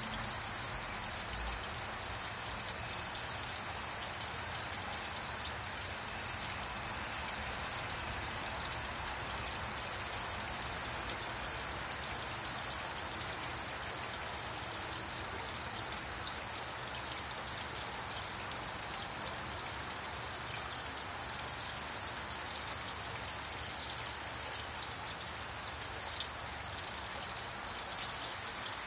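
Steady hiss of running, trickling water.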